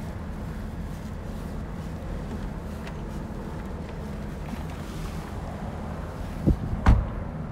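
A car's trunk lid shuts with two thuds about half a second apart near the end, the second louder as the lid latches. Under it runs a steady low rumble of wind or traffic.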